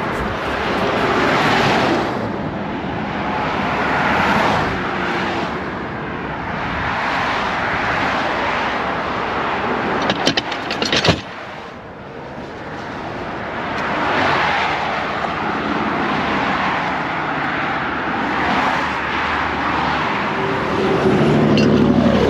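Highway traffic passing close by, the rush of cars swelling and fading every few seconds. A short burst of sharp clicks and clatter comes about ten seconds in.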